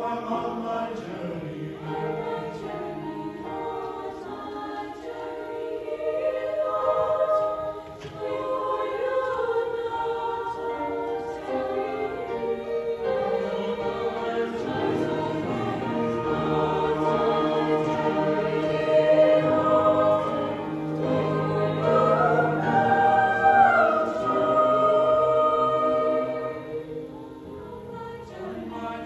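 Mixed youth choir singing, several voice parts in harmony, with a brief drop in loudness near the end before the voices come back in.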